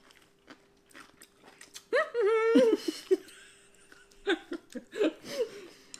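People chewing pickled ginger, with small wet mouth clicks, broken by a burst of laughter about two seconds in and more short giggles near the end.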